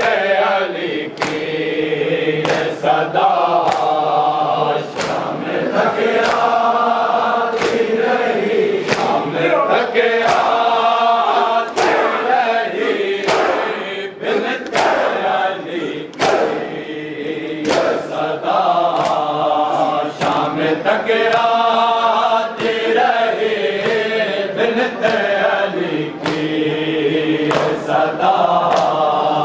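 Group of mourners chanting a noha in chorus, with the slap of hands beating on chests in time, a steady beat a little over once a second.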